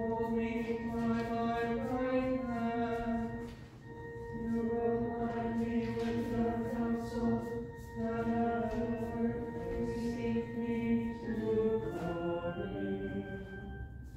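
A group of voices singing a slow liturgical chant, the sung response between the Epistle and the Gospel, over steady sustained organ chords that hold through the breaks between phrases.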